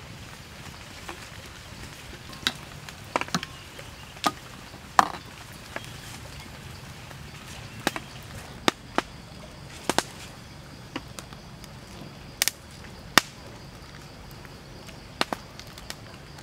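Sharp, irregular clicks and knocks, roughly one a second and some in quick pairs, over a steady hiss.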